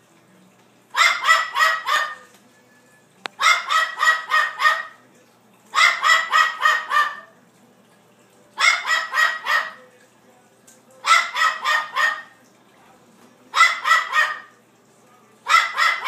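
Blue-fronted Amazon parrot imitating a small dog's bark: quick runs of four or five barks, repeated about every two and a half seconds, seven times over.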